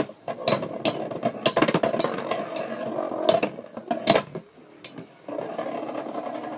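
Two Beyblade spinning tops whirring against the plastic stadium floor, clashing with repeated sharp clacks. The whirring dies down briefly about two thirds of the way through, then picks up again.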